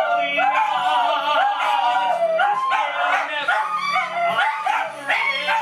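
Several dogs howling together, long wavering howls overlapping without a break, with some yips.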